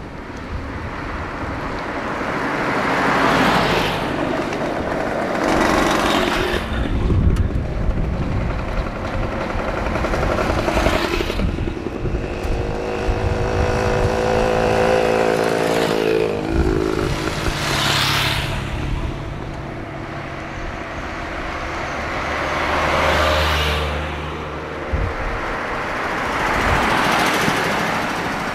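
Vintage cars and motorcycles driving past one after another, each engine's sound swelling and fading as it goes by. About 16 seconds in, one engine's note drops in pitch as it passes.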